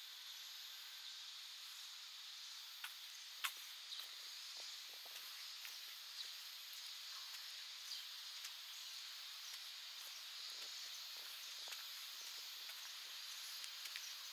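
Quiet outdoor ambience: a steady high-pitched hiss of summer insects, with light footstep clicks now and then and one sharper click about three and a half seconds in.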